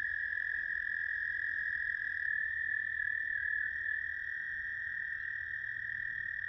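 American toads trilling: one long, steady, high trill, with a second, slightly lower trill overlapping it for a second or so in the middle.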